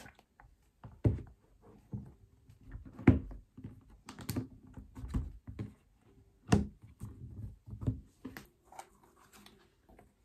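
An iPad being fitted into its protective folio case by hand: irregular clicks, taps and knocks of the tablet and case against each other and the table, a few of them sharper thunks.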